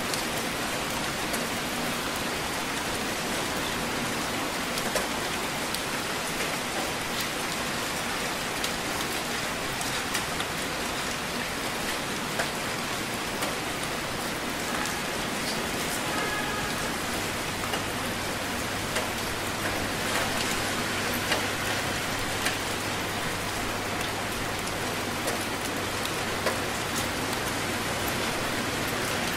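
Heavy rain falling steadily: an even hiss with frequent sharper drop impacts scattered through it.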